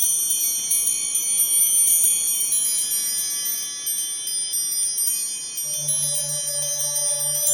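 Bright chiming of many small bells, with overlapping high notes ringing on and sustaining. About six seconds in, lower bell tones and a low pulsing hum join them.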